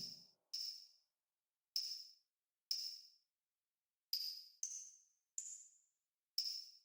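Eight short, high-pitched percussive ticks at uneven spacing, each dying away quickly, one a little higher than the rest near the end.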